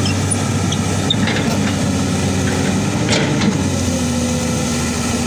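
Komatsu hydraulic crawler excavator's diesel engine running steadily as the machine swings its boom and starts up the bank on its tracks. A steadier, higher tone joins a bit past halfway, and there is a single knock about three seconds in.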